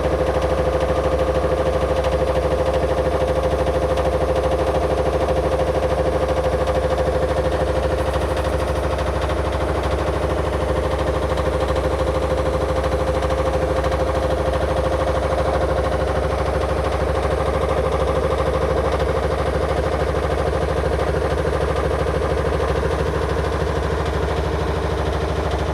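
Electrolux LE1000-2 washing machine running steadily, its motor giving a constant hum with a steady mid-pitched whine.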